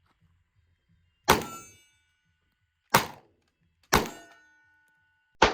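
Four gunshots, spaced about a second to a second and a half apart, each with a short decaying tail; a clear ringing tone lingers after the first and the third.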